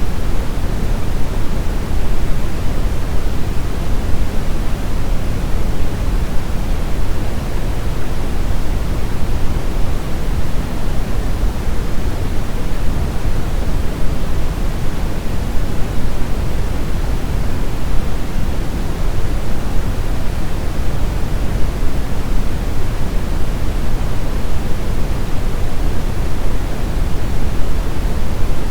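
Steady brown noise: an even, unchanging rush with most of its energy in the low end, falling away toward the highs.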